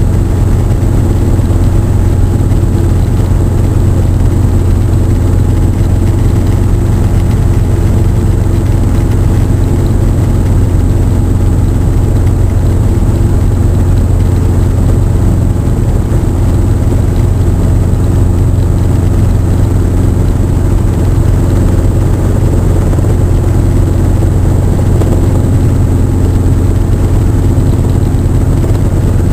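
Robinson R22 helicopter in flight, heard from inside the cockpit: its piston engine and two-blade main rotor give a loud, steady, low drone with several steady tones over it.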